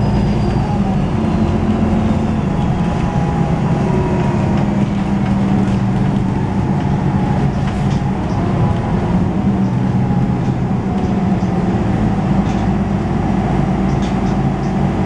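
MAN Lions City G articulated bus's 10.5-litre straight-six diesel running steadily under way, heard from inside the bus. A faint high turbocharger whistle falls in pitch over the first few seconds.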